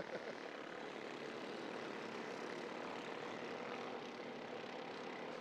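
Several Junior 2 off-road karts with small 265cc Subaru single-cylinder engines running at speed together, a steady droning of engines.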